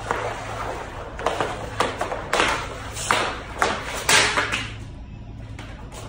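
Hockey practice: a quick run of sharp knocks and clacks from stick and puck, with pucks striking the net's metal posts and targets. The loudest knock comes about four seconds in, and the knocks stop a second or so later.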